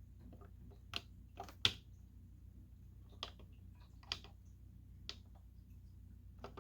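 Buttons on a Realistic Chronomatic 260 alarm clock being pressed: about seven separate sharp clicks at uneven intervals, the loudest a little under two seconds in. A faint steady low hum runs underneath.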